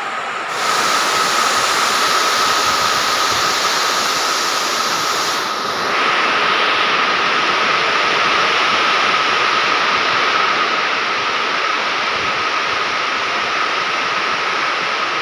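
A steady, loud rushing noise with a faint, steady high whine running through it. The noise jumps up abruptly about half a second in and changes character again about five and a half seconds in.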